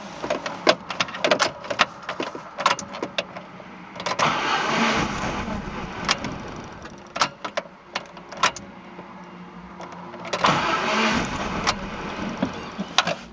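Chevrolet Niva engine being cranked and starting, in two longer runs about four and ten seconds in, with sharp clicks and knocks in between. The engine has freshly fitted hydraulic lifters.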